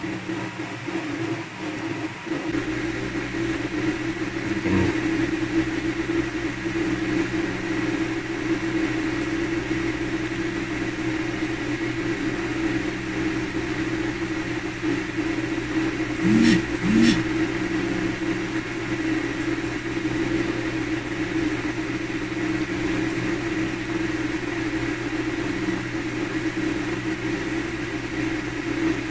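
A steady mechanical whirring hum throughout, with two short, louder sounds in quick succession about halfway through.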